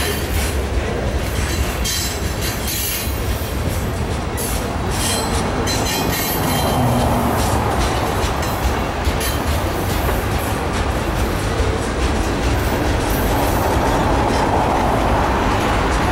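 Freight cars of a mixed freight train rolling past close by, autoracks then boxcars and a covered hopper: a steady noise of steel wheels on rail with scattered wheel clicks.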